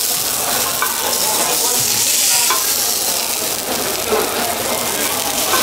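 Thick slices of pork belly sizzling steadily on a hot cast-iron pot-lid griddle (sotttukkeong), with a few faint clicks of metal tongs as the meat is moved.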